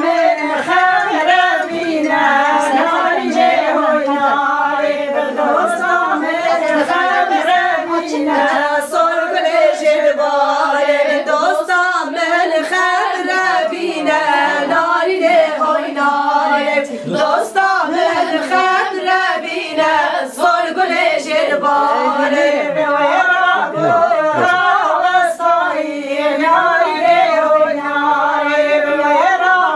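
A group of women singing a Kurdish folk song together in unison, unaccompanied, the melody running on in repeated phrases.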